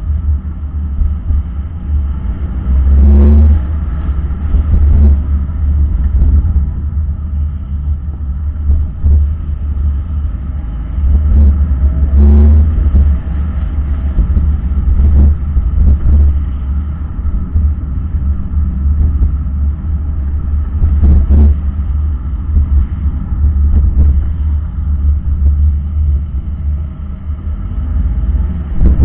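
Low, steady rumble of a car moving slowly in traffic, with a few brief knocks.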